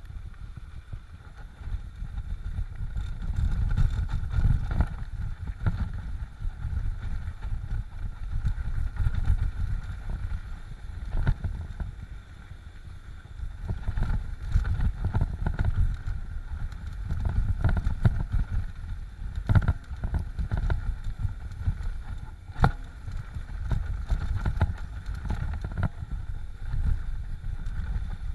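Mountain bike descending a rough dirt singletrack: heavy wind rumble on the handlebar camera's microphone, with the bike rattling and giving sharp knocks over bumps many times.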